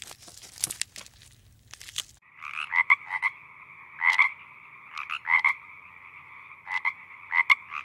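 Frog croaking in short groups of two or three quick notes, over a faint steady chorus. Before the croaking begins, about two seconds in, there is crackly rustling and tearing of leaves as a giraffe browses.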